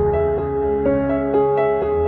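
Background music: a gentle song of held notes, the melody moving to a new note about every half second.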